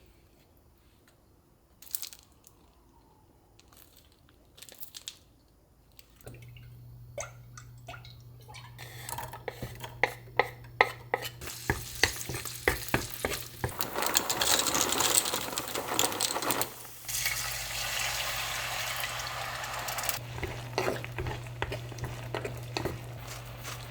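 Kitchen work sounds: scattered clicks and clinks of utensils and cookware, then a loud stretch of hissing noise in the middle, like a tap running or food cooking, over a steady low hum.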